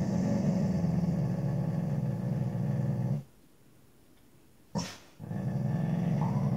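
Labrador-mix puppy growling: a long low growl of about three seconds, a short sharp sound near the middle, then a second long growl near the end.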